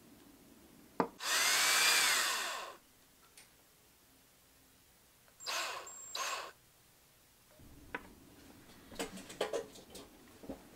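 Ridgid cordless drill spinning a screw eye into a wooden lure body. One run of about a second and a half, with the motor whine rising then falling, then two short bursts some four seconds later. A few light clicks near the end.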